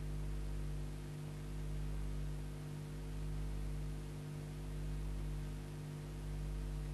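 Steady electrical mains hum under a layer of hiss, its low rumble swelling and dipping about every one and a half seconds.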